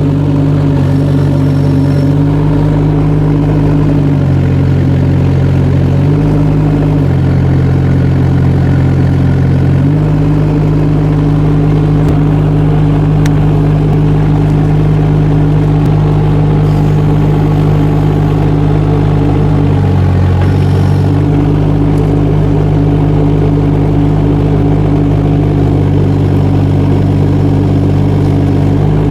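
Kubota D902 three-cylinder diesel engine of a 2-ton mini excavator running steadily. Its note drops and recovers several times as the hydraulics are loaded, working the expandable tracks in and out.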